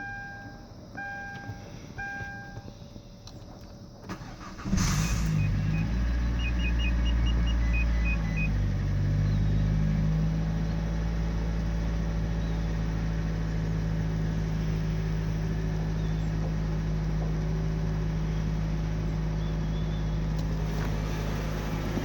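Kia Sportage 3 dashboard chime beeping three times, then the engine cranks and starts about five seconds in, revs briefly and settles into a steady idle. The owner is recording it because of a knock in the engine.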